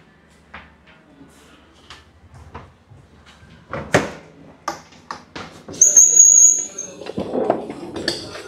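Refrigerator doors being handled: a series of clicks and knocks, growing louder about four seconds in, with a brief high squeal around six seconds and a rustling clatter near the end.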